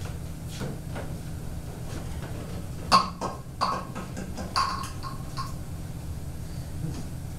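Stage furniture being set down in the dark during a scene change: three sharp knocks with a short ring, about three seconds in and over the following two seconds, over a steady low room hum.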